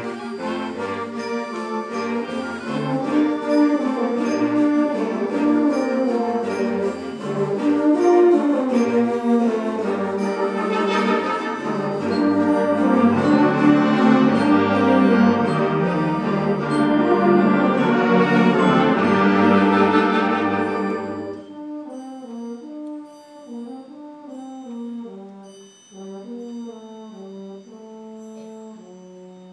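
Student concert band playing at full strength, dense and loud with regularly spaced percussion strikes, then dropping suddenly about three-quarters of the way through to a soft, thin passage of a few wind instruments holding and moving between notes.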